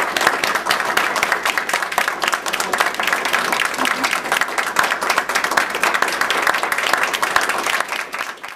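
Small audience applauding: dense, steady clapping that cuts off abruptly at the very end.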